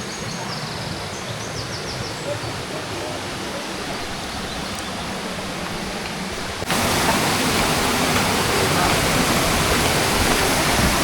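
Steady rushing of the waterfall at Janet's Foss, a woodland cascade. About two-thirds of the way in it abruptly becomes louder and brighter, as at a cut to a spot closer to the falling water.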